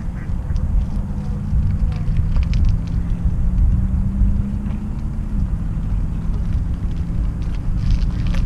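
Wind buffeting the microphone of a bicycle-mounted action camera while riding: a steady low rumble, with a faint hum that drops slightly about five seconds in and light scattered clicks.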